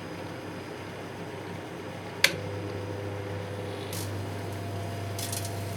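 A microwave oven clicks on about two seconds in and starts its steady hum. Brief crackles follow, first about four seconds in and again near the end, as the computer chips inside begin to arc and sizzle.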